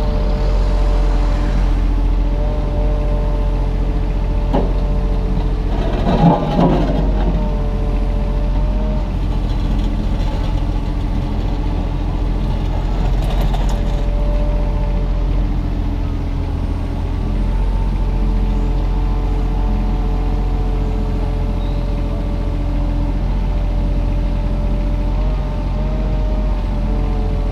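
Kubota mini excavator working, its diesel engine running steadily under load with tones that shift in pitch as the machine moves. A short clatter comes about six seconds in.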